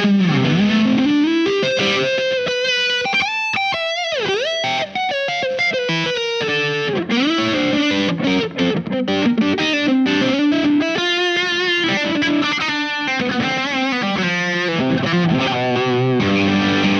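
Larrivée RS-2 electric guitar with P90 pickups played through a Visual Sound Jekyll & Hyde V1 drive pedal: overdriven single-note lines with several string bends.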